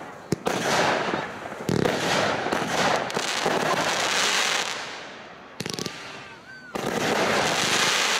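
Fireworks display: aerial shells bursting with sharp bangs near the start and about two seconds in, each trailing off into a dense crackle. After a brief lull, another loud volley of bursts comes in about seven seconds in.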